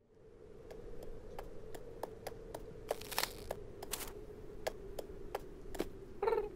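Cartoon foley of a cat's paws stepping along a frosty stone pond edge: light, crisp clicks, about two or three a second, over a faint steady hum, with a short cat vocal sound near the end.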